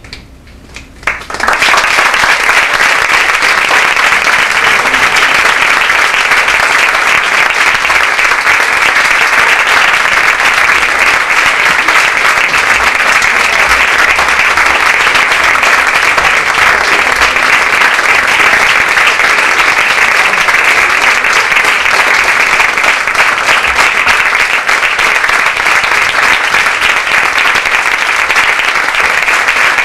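Theatre audience applauding: a few scattered claps, then loud, dense applause breaking out about a second and a half in and continuing steadily.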